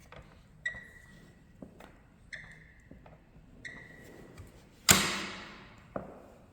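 Sidiz office chair backrest squeaking as it is leaned against: a short, high-pitched, beep-like squeak that comes again about every second and a half, the fault the owner traced to a dry spot that needed grease. About five seconds in there is one loud sharp knock with a fading rattle.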